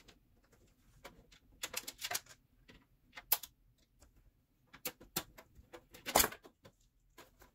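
Irregular clicks, taps and short scrapes of hands handling cables and plastic fan parts inside a computer case, the loudest a little after six seconds in.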